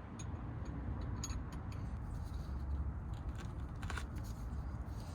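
A few light metallic clicks and scrapes of a hex (Allen) key being fitted and worked in the belt tensioner's pulley bolt, over a low steady rumble.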